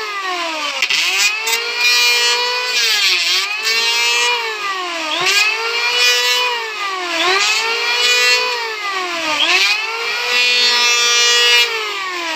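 Electric hand planer running at full speed and cutting a wooden strip. Its motor whine drops in pitch as the blades bite on each pass, about every two seconds, and rises again between passes. The user thinks the blades have gone dull.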